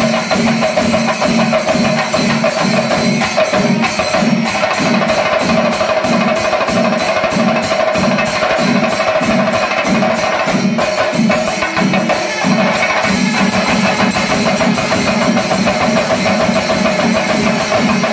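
Pandimelam percussion ensemble playing: massed chenda drums beaten fast with elathalam hand cymbals clashing in time, over a steady low beat about one and a half times a second and a sustained tone held throughout.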